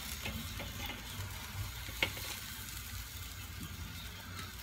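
A whole palani (surgeonfish) sizzling low and steady on a charcoal kettle grill. There are light scrapes and one sharp click about two seconds in as the fish is worked loose and lifted with tongs and a knife.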